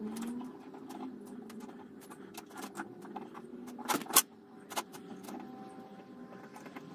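Small metallic clicks and clinks of a hand tap wrench and tap working a threaded hole in an iron bar held in a steel vise, with one sharper clink about four seconds in.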